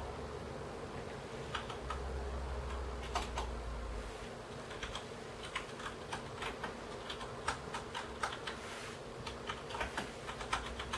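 Irregular light clicks, a few a second, over a steady low hum, with a low rumble between about two and four seconds in.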